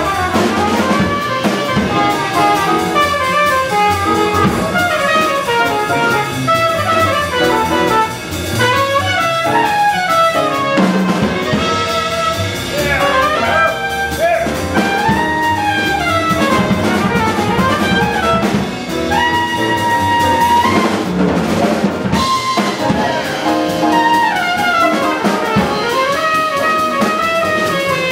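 Live small-group jazz: a trumpet plays a solo of quick runs up and down over grand piano, upright bass and drum kit.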